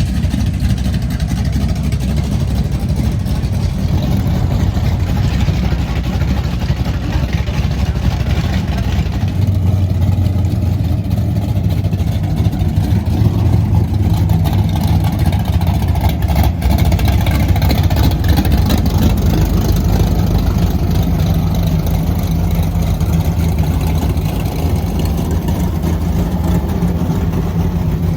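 Drag race car engine running steadily at low revs, getting louder about ten seconds in.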